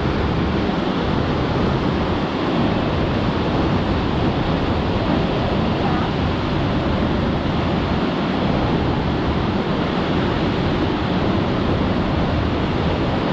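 Waterfall: a steady, loud rush of falling water that never breaks off.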